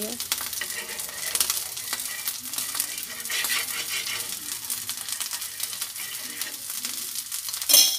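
Potato tikkis frying in desi ghee on a hot iron tawa, crackling and sizzling as more ghee is spooned around their edges. A steel spoon clicks and scrapes against the tawa, with one sharp clink near the end.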